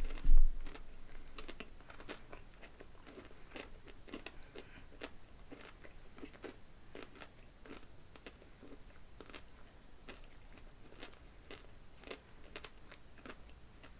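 Close-miked chewing and crunching of a mouthful of candy-shelled white-chocolate pumpkin pie M&M's, with many small crunches all the way through. There is one loud thump just after the start.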